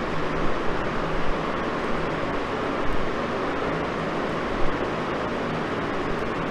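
Steady hiss of background room noise with a faint low hum, broken by a few small soft clicks.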